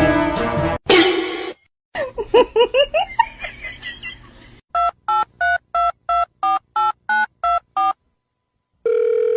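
Telephone keypad touch tones: about ten quick two-tone beeps as a number is dialled, then a steady call tone begins near the end. Before the dialling, music cuts off and a run of quick, rising, chirpy sounds follows.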